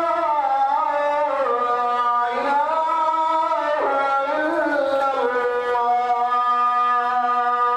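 Melodic background music: a line of held notes that glides from pitch to pitch.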